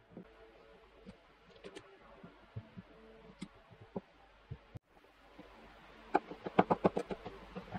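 Chef's knife cutting zucchini on a plastic cutting board: a few scattered soft taps, then a quick run of about ten knife strokes on the board near the end.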